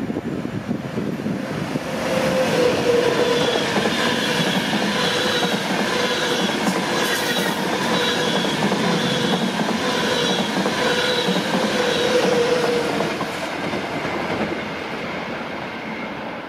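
ÖBB Railjet passenger train hauled by a Taurus electric locomotive passing through the station at speed: wheels rumbling on the rails with a ringing that pulses about once a second. It swells about two seconds in and dies away over the last few seconds as the train goes by.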